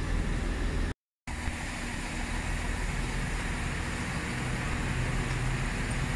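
Electric train noise at a station platform: a steady hum and rumble, cut off by a brief dropout to silence about a second in, then a low hum that grows louder from about four seconds in as another electric train approaches.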